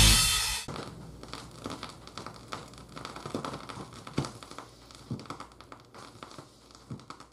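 Music from a vinyl record stops about half a second in, leaving the record's surface noise under the Shure cartridge's stylus: scattered clicks and pops over a faint hiss, fading toward the end.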